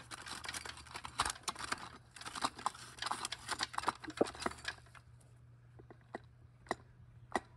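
A 5EAT transmission's clutch drum assembly being turned back and forth by hand and worked down into the aluminium case so its splines engage the clutch plates: a busy run of light metallic clicking and rattling for about five seconds, thinning to a few single sharp clicks near the end.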